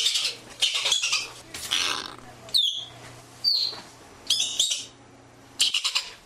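Ground squirrel calling: sharp, high-pitched chirps, some coming in quick rattling bursts and others as single chirps that drop in pitch, repeated about every second.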